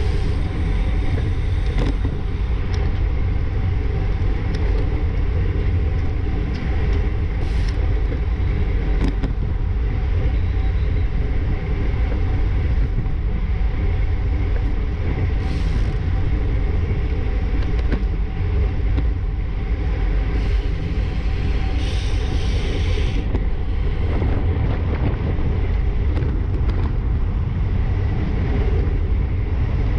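Steady wind rush and rumble on a bicycle-mounted GoPro's microphone, riding at about 25 mph in a racing bunch, with road noise underneath. A few brief higher hissing sounds come and go.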